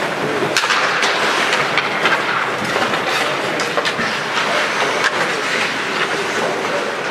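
Ice hockey play on the rink: a steady scraping hiss of skates on ice, broken by scattered sharp clacks of sticks and puck.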